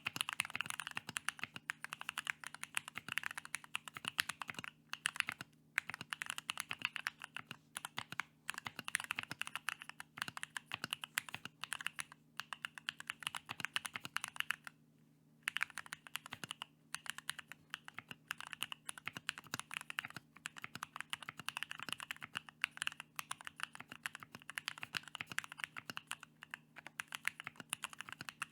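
Continuous fast typing on a Bakeneko 60 mechanical keyboard with Kiwi tactile switches and PBT Cherry Taro keycaps: a dense run of key clacks with a brief pause about halfway through. A faint steady low hum lies underneath.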